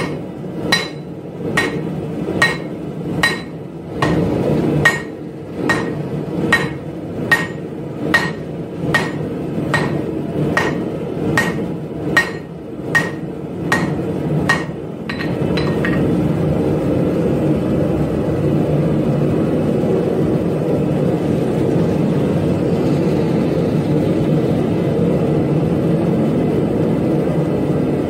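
Hand hammer striking a hot laminated bar of 1084 and 15N20 steel on an anvil, a little over one blow a second, each blow with a short metallic ring. The hammering stops about fifteen seconds in, leaving the steady noise of the forge burner, which also runs under the blows.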